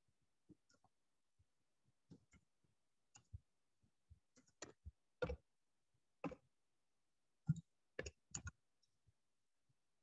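Computer keyboard keys typed in an irregular run of faint clicks, sparse at first and thicker through the middle and second half.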